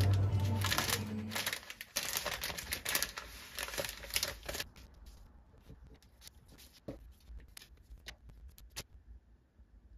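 Frosted plastic bouquet wrapping crinkling and rustling as it is opened out, for about four seconds. A few separate sharp clicks follow in the quieter second half.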